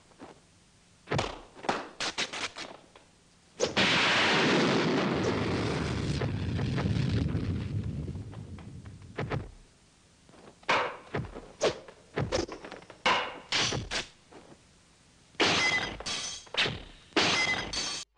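Kung fu film fight sound effects: a string of sharp punch and kick impacts, with a long burst of noise about four seconds in that fades away over several seconds, then rapid clusters of hits in the second half.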